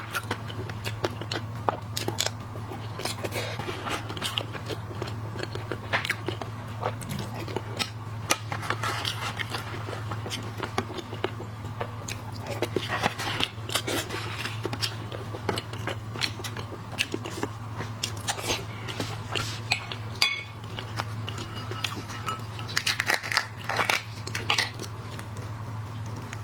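Close-up eating of shellfish: shells cracking and crunching, with chewing and many sharp crackles and clicks. A steady low hum sits under it throughout.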